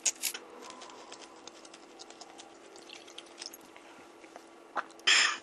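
Close-miked eating sounds: grilled shrimp being peeled and chewed, a string of faint small clicks and wet crackles over a faint steady hum, with a short louder crunching rustle about five seconds in.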